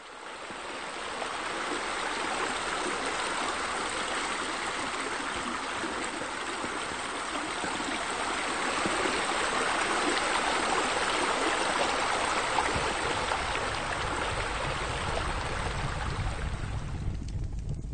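Steady rushing and splashing of water pouring from a swimming pool's spillway water features. It fades in at the start and fades down near the end.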